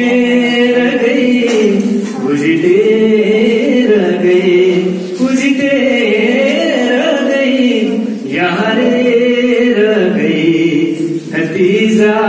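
A man singing into a microphone in long held phrases, with short breaks about every three seconds.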